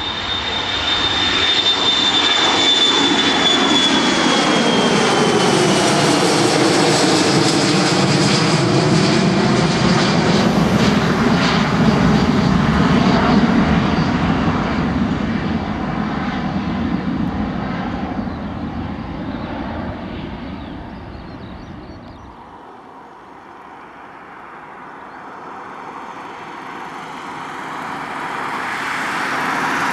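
Boeing 737-400's CFM56 turbofans at takeoff thrust as it climbs out and passes by: a high fan whine falling in pitch over the first few seconds, then a long fading rumble as it climbs away. Near the end a second airliner's engines grow louder as it approaches to land.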